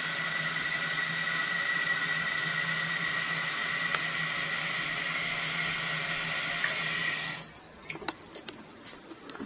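Toilet tank fill valve running as it refills a newly installed tank, a steady hissing water rush with a faint whine, which stops sharply about seven seconds in, followed by a few light clicks.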